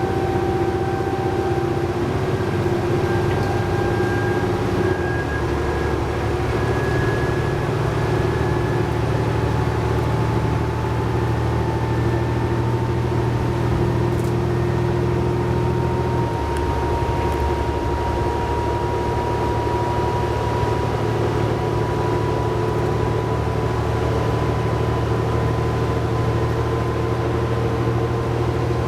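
Cummins ISL9 inline-six diesel and Allison B500R transmission of a New Flyer D60LFR articulated bus, heard from inside the bus under way: a steady engine drone with a transmission whine that climbs slowly in pitch as the bus gathers speed. The engine note changes a little past halfway.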